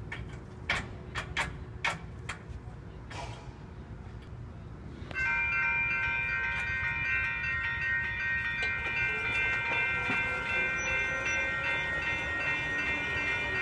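Railroad grade-crossing warning bell that starts ringing about five seconds in and keeps ringing steadily as the crossing activates, signal lights flashing and gate arms lowering. Before it, a few sharp clicks over a low background rumble.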